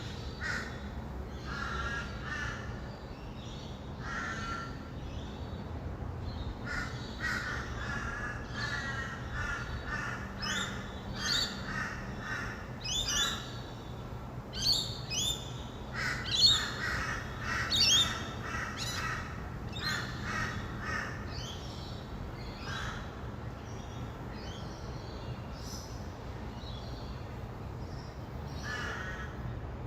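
A flock of rainbow lorikeets calling, with many short overlapping calls that grow busiest and loudest in the middle, over a steady low hum of distant traffic.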